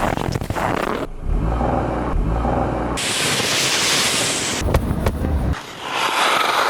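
Short outdoor sound clips joined with abrupt cuts: a low vehicle-engine rumble, then a loud hiss, then the engine rumble again, ending in a rougher rushing noise.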